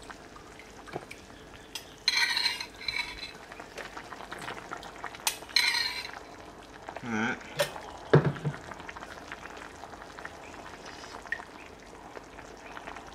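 Metal spoon stirring and scraping in a ceramic bowl of hot soup broth, in a few short bursts with a couple of sharp clinks. The broth is being stirred to cool it before tasting.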